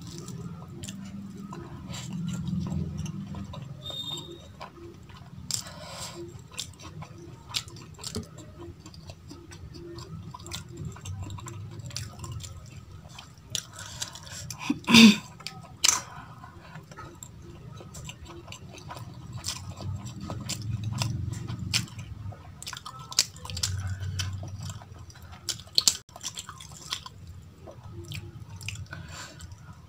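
Close-up eating sounds: fingers mixing rice, dal and greens on a steel plate and chewing with the mouth, with many short wet clicks and one sharp, loud click about halfway.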